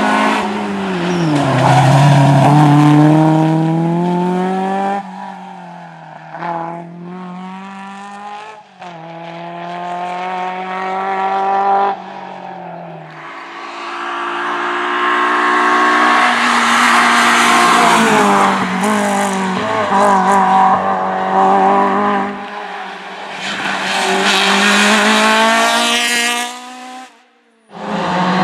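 Rally cars at full speed on a stage, one after another in quick cuts: engines revving hard, the pitch climbing and falling again and again through gear changes and braking. A short near-silent gap comes just before the end, where the next car's engine starts.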